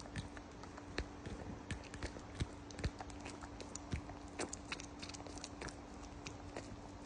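Young alpaca drinking milk: irregular wet mouth clicks and smacks, several a second, over a steady low hum.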